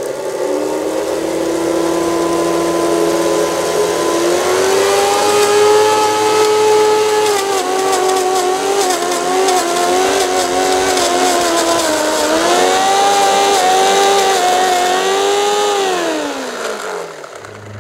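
Small electric motors of a G-scale garden-railway rotary snowplough train whining steadily, the pitch rising and wavering. From about seven seconds in a rapid crackle of clicks joins it. Near the end the whine glides down and stops.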